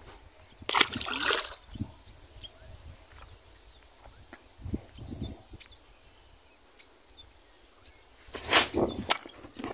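A traíra released into shallow ditch water, with a short splash about a second in. Rustling of bankside grass and handling noise follow near the end.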